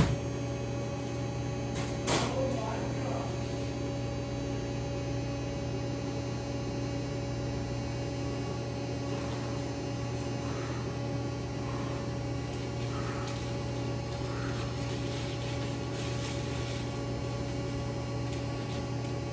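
Steady electrical hum of restaurant equipment, several fixed tones held throughout, with a short knock about two seconds in.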